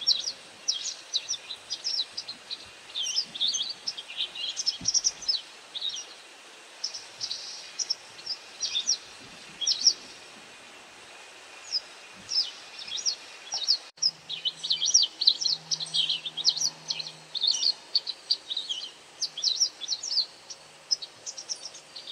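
White wagtail giving its sharp call notes: a dense run of short, high chirps, several a second, with a brief lull about halfway through.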